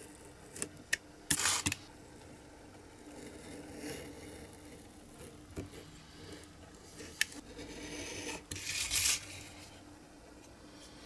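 Snap-off craft knife blade cutting thin printed card along a metal ruler on a cutting mat: a few sharp clicks and two longer scratchy cuts, one about a second and a half in and one near the end.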